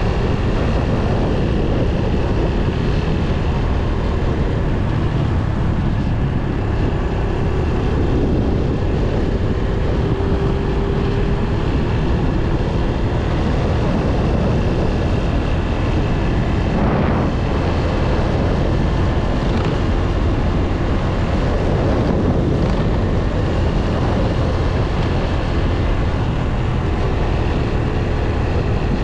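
Motorcycle riding at street speed: engine running under heavy wind buffeting on a helmet-mounted microphone, with the engine note rising and falling a few times.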